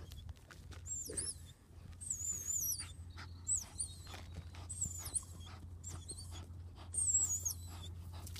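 A dog panting and scratching as it digs for rats, with many short scrabbling clicks. High warbling chirps sound every second or so.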